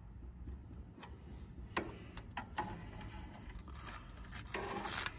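Scattered light clicks and rubbing from a telescoping inspection mirror being handled and repositioned around a copper pipe joint, with a longer scrape near the end.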